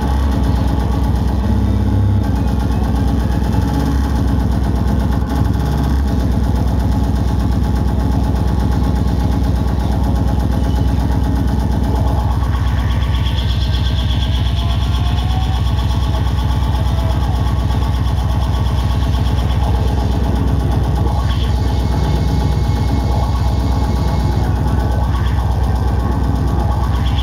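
Loud, distorted hardcore electronic music on a club sound system: a very fast, relentless kick drum over heavy bass.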